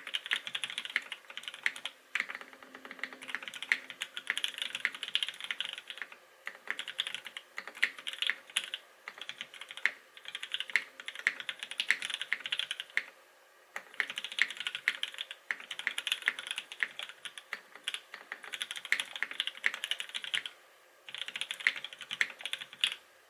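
Typing on a custom mechanical keyboard: lubed linear Gateron Black Ink switches on a carbon fibre plate with GMK keycaps, giving fast runs of keystrokes in bursts of a few seconds with short pauses between them.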